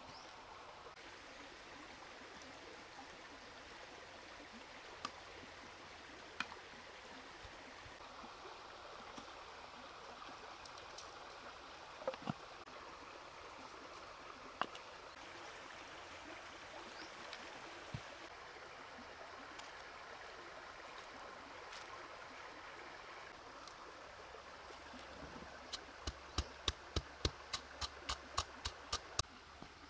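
A shallow stream running steadily, with a few scattered light knocks. Near the end comes a quick run of a dozen or so sharp knocks, three to four a second: red chillies and salt being pounded in a coconut-shell bowl.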